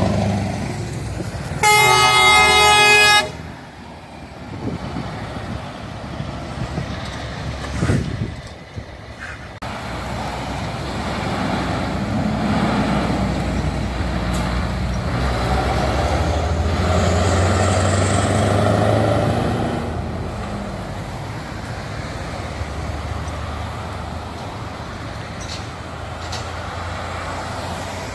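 Scania trucks driving past: a truck air horn gives one loud blast of about a second and a half, about two seconds in. Later a Scania truck with loud exhaust pipes passes, its diesel engine growing louder and then fading.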